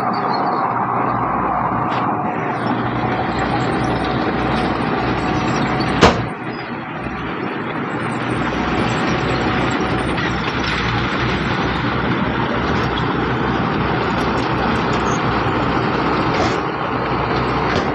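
Diesel engines of heavy earthmoving machinery running steadily under load, with one sharp bang about six seconds in.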